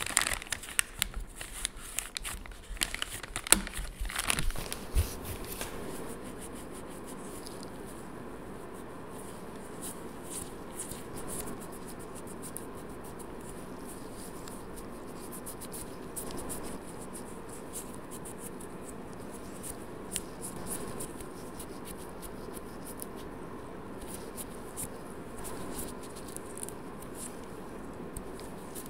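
Plastic wet-wipe packet crinkling and clicking as a wipe is pulled out of it, then a quieter, steady soft rubbing as the wipe is drawn over the fingernails.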